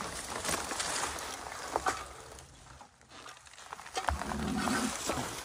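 An unidentified low, wavering howl-like call starting near the end, over background noise with a few sharp clicks.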